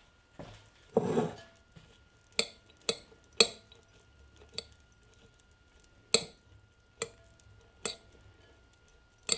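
Metal forks clinking against a white ceramic bowl while tossing spiralized raw zucchini noodles with pesto: a duller bump about a second in, then about eight sharp, irregular clinks.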